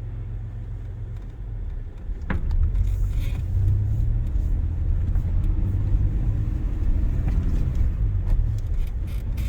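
1990 Toyota 4Runner driving, heard from inside the cab: a low engine and road rumble, with a single click about two seconds in, after which the rumble grows louder.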